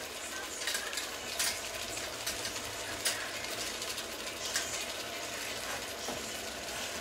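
A metal spoon stirring and scraping in a small metal pan, with a few sharp clinks of spoon on pan scattered through, over a steady hiss.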